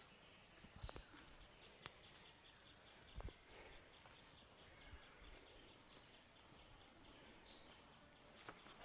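Near silence, with a few faint clicks and soft taps from hands working during a head massage.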